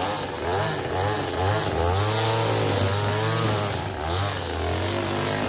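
Gas string trimmer engine running while cutting grass, its pitch wavering up and down as the throttle is worked.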